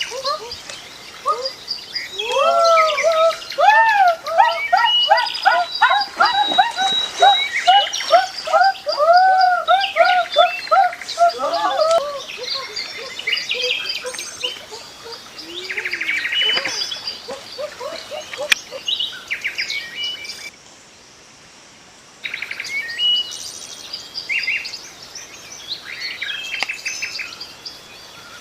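Birds calling and chirping, with a fast run of repeated rising-and-falling notes through the first half and scattered chirps after. The sound drops out briefly about two-thirds of the way through.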